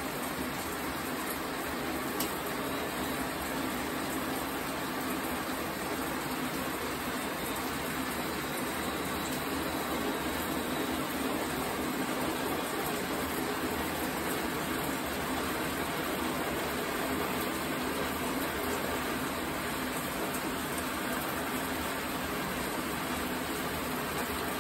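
Shower running: a steady hiss of falling water.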